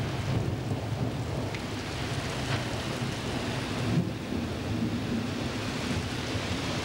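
Thunderstorm downpour with strong wind: heavy rain hissing steadily over a continuous low rumble.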